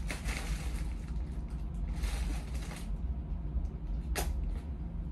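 Rustling and clinking as jewelry pieces are handled and sorted, with a sharp click about four seconds in, over a steady low hum.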